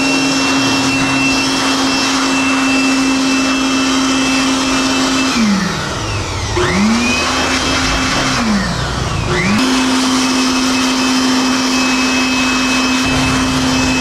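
Handheld electric blower running with a steady high motor whine. About five seconds in it winds down, spins back up, winds down again briefly, then spins up once more and runs steady. It is blowing water off a washed motorcycle.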